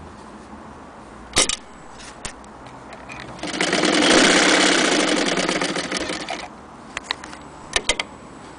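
Vintage electric Frister & Rossmann sewing machine stitching through denim in one run of about three seconds, a fast even needle rattle that picks up speed and then slows to a stop. A few sharp clicks come before and after the run.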